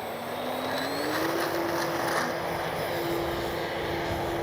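FMS Ranger's brushless electric motor and propeller whining in flight, the pitch rising about a second in as the throttle goes up and then holding steady, over a rush of wind noise.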